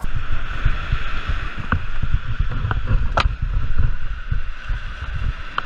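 Wind buffeting the microphone over surf washing on a sandy beach, a loud uneven rumble with a steady hiss, broken by a few short clicks.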